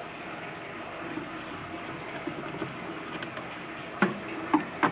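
Steady background noise, with a few short clicks from about four seconds in as a screwdriver works at a contactor's plastic housing.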